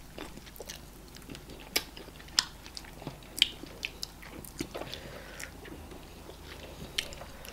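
Close, wet mouth sounds of people chewing eba and okra soup with meat, with a scatter of short sharp smacks, the loudest about two, two and a half, three and a half and seven seconds in.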